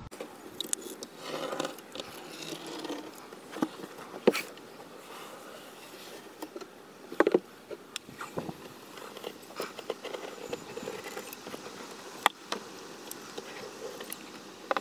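Scattered clicks and knocks from working a caulking gun and handling it against a wooden dog house, with some rustling, as a bead of caulk is run along the inside corner between wall and floor.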